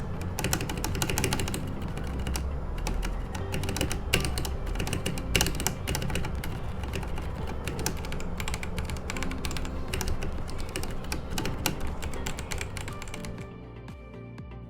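Fast typing on a Royal Kludge RK100 mechanical keyboard with stock, unlubed Outemu red switches and aftermarket honey milk keycaps: a dense, uneven patter of key clicks. The typing stops about a second before the end, over background music.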